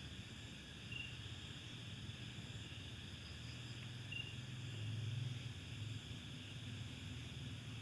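Night chorus of crickets and other insects, a steady high buzz, with a short chirp standing out about a second in and again about four seconds in. Under it, a low rumble that swells briefly about five seconds in.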